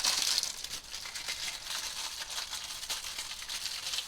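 Plastic wrapping crinkling and rustling as it is handled by hand, a dense crackle that is loudest at the start.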